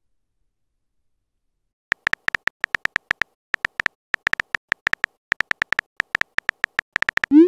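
Texting app's keyboard sound effect: a quick, irregular run of short, high clicks starting about two seconds in as a message is typed. Near the end comes a short rising whoosh, the app's message-send sound.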